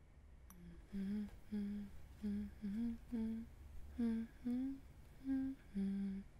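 A woman humming a slow, lullaby-like tune in short separate notes, about two a second, starting about half a second in.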